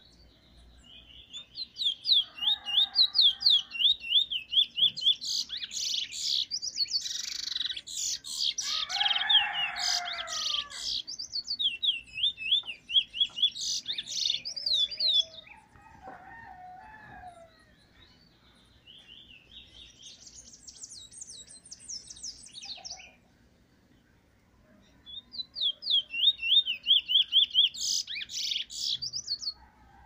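A caged brown bullfinch (the Caribbean keeper's name for a seed-finch) singing its song: bouts of rapid, zigzagging high whistled notes, with pauses at about fifteen and twenty-three seconds and a last burst near the end.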